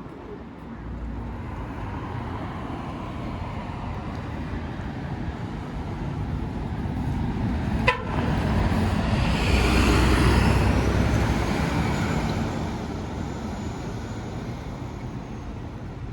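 Keikyu Line train passing over the Yatsuyama-bashi level crossing: the rumble builds over several seconds, is loudest about ten seconds in, then slowly fades. A single sharp click comes about eight seconds in.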